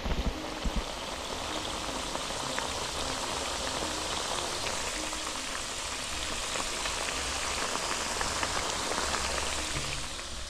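Potatoes deep-frying in hot oil: a steady sizzle with many fine crackles, easing slightly near the end.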